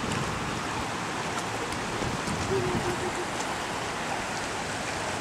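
Steady rush of brown floodwater streaming across a submerged road.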